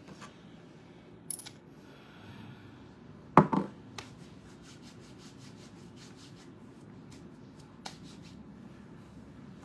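Hands rubbing together, a soft run of brushing strokes. There are a few small handling clicks, and one loud thump about three and a half seconds in.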